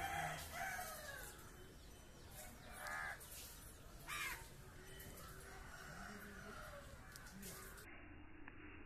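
Crows cawing: a few short harsh calls in the first half, the clearest about three and four seconds in, over faint outdoor background.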